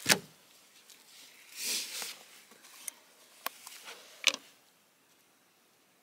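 Close handling noises from a small plastic tub being picked up and opened: a sharp knock at the start, a second of rustling, then several sharp clicks, the loudest about four seconds in.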